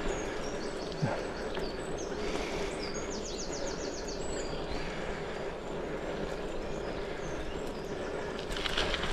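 Small birds chirping, with a quick run of repeated notes about three seconds in, over the steady rolling and wind noise of a gravel bike on the move.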